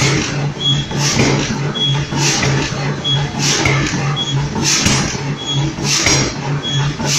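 A power forging hammer strikes a red-hot steel billet in regular blows, about one every second and a quarter. Each blow gives a short, sharp ring over the machine's steady pulsing run.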